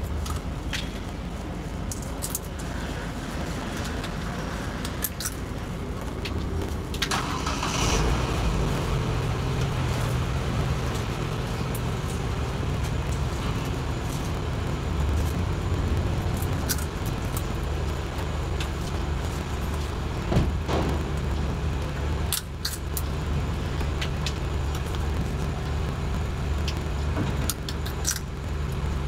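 Steady low rumble of road vehicles, a little louder from about eight seconds in, with scattered clicks and a jingle like keys.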